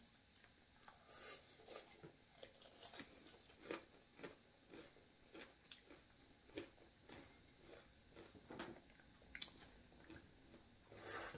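Quiet chewing of crispy fried crab rangoons: soft, irregular crunches and mouth clicks.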